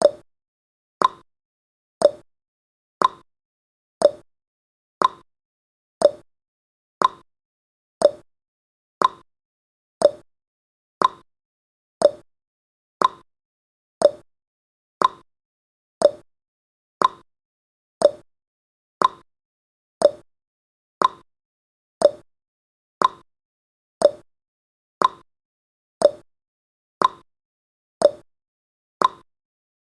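Countdown timer's clock-tick sound effect, one sharp tick about every second at a steady even pace.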